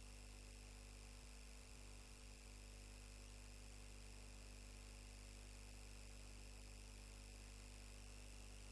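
Near silence: a faint, steady electrical hum with a light hiss.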